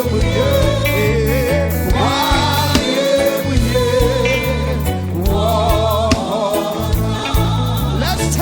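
Gospel praise music: a lead singer's wavering vocal line over a steady bass groove.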